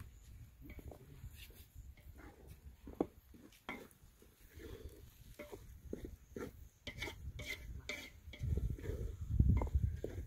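A wooden spoon stirring sauce in an aluminium cooking pot, with scattered light taps and scrapes of spoon against pot. A louder low rumble comes in near the end.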